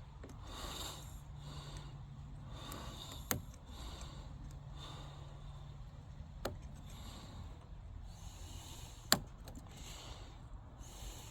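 A Lishi CY24 pick-decoder working in a car door's wafer lock: three sharp, quiet metal clicks a few seconds apart, the loudest near the end. Soft breathing runs in between.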